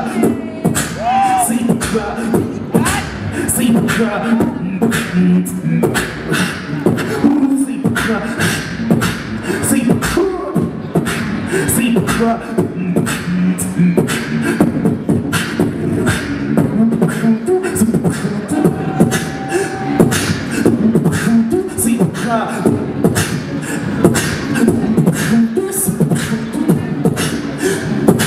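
Live beatboxing amplified through a handheld microphone: a fast, dense stream of mouth-made kick, snare and hi-hat clicks over a steady low tone.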